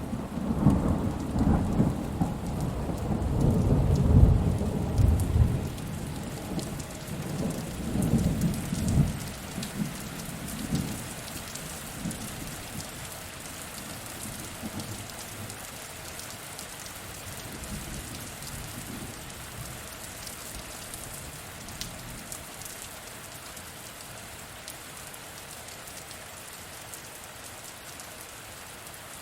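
Steady rain falling, with a long roll of thunder at the start that swells to its loudest about four seconds in, rumbles on in waves and dies away by about twelve seconds, leaving only the even hiss of the rain.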